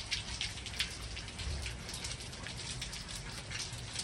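Heavy rain falling steadily, with many distinct drops striking close by.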